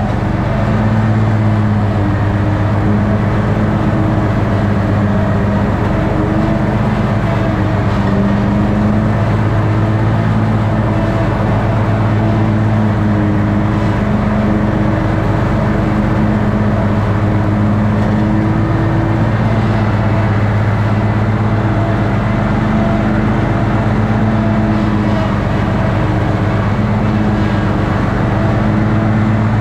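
Toro ride-on lawn mower engine running steadily at working speed while mowing, with its pitch wavering slightly.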